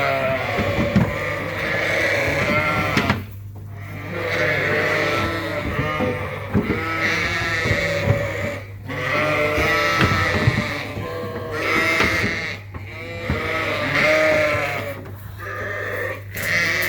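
A flock of ewes bleating loudly, with many overlapping calls and a few brief lulls. These are ewes upset at being separated from their lambs during loading. A steady low hum runs underneath.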